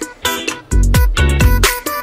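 Background music with a steady beat: deep bass notes that slide down in pitch, about two a second, under a layer of sustained pitched tones.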